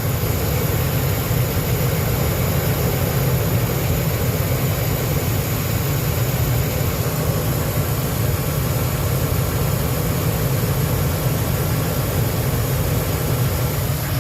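2004 Lincoln Navigator's 5.4-litre V8 running steadily, warming up after a coolant refill while air is worked out of the cooling system.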